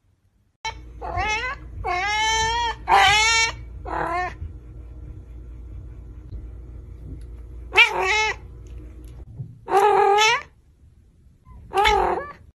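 Cat meowing repeatedly: a quick run of five meows, two of them longer and drawn out, then three more single meows about two seconds apart.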